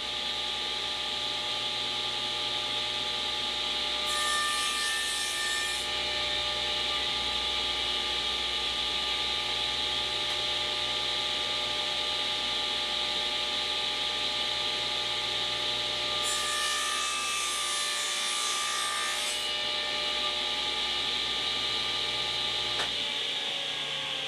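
Table saw running with its blade tilted to 45 degrees, cutting through a scrap board twice, about four seconds in and again about sixteen seconds in: test cuts to check the blade's 45-degree angle. Near the end the motor is switched off and begins to wind down.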